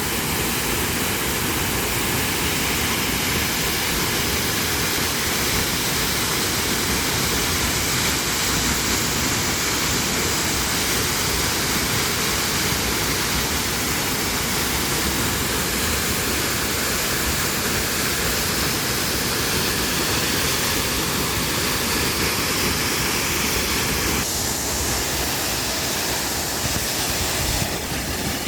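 Waterfall: the steady, loud rush of falling water, its tone shifting slightly about 24 seconds in.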